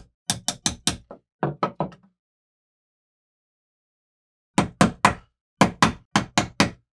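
Sharp knocks in quick runs of three to five, about five a second. Two runs come early, the second one duller, then complete silence for a couple of seconds, then three more runs near the end.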